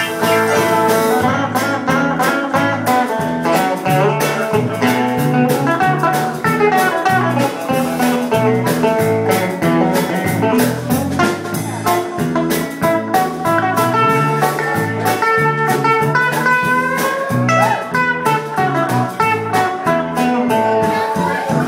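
A live acoustic band plays an instrumental break: plucked strings, led by guitar, over a steady walking bass, with no singing.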